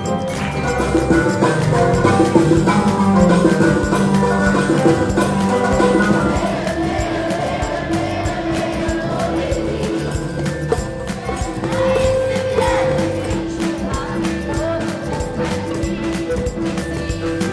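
Music with a steady percussion beat under sustained melodic notes.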